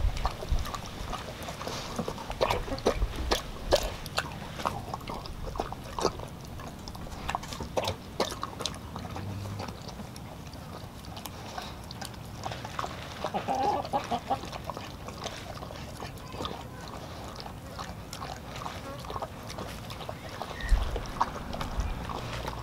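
Doberman eating ground raw meat from a stainless steel bowl: wet smacking, chewing and licking in a quick, irregular run of clicks and slurps.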